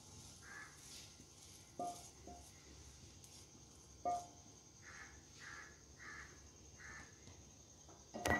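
Spatula scraping scrambled egg out of a non-stick frying pan onto a plate: soft scrapes, with three sharp taps that ring briefly. A louder knock comes near the end as the pan is set back down.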